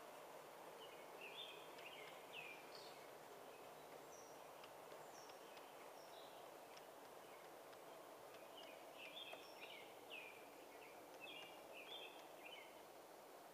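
Faint, steady rolling of a garden-scale model freight train's metal wheels on the track. Over it comes a songbird's short chirps, in one bout a second or two in and another about two-thirds of the way through.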